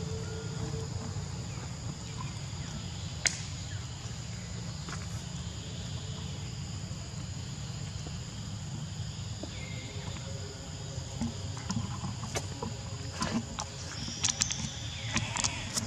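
Outdoor insect drone, a steady high thin buzz, over a low steady rumble. There is a sharp click about three seconds in, and a cluster of clicks, rustles and short high chirps near the end.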